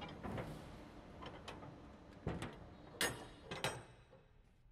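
Several sharp clicks and knocks, about half a dozen, over a low steady background hum, fading out near the end.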